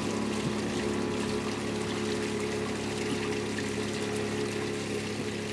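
A small motor on a fishing boat humming steadily, with water pouring and trickling over it.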